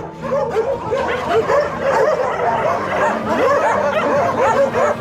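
Several puppies yipping and whimpering at once, a fast, overlapping stream of short, high cries.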